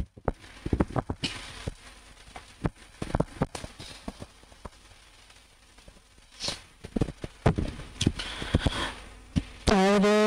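Irregular clicks, knocks and short rustles from a lectern microphone being handled and moved. Near the end, instrumental music starts on a held note, the opening of a hymn.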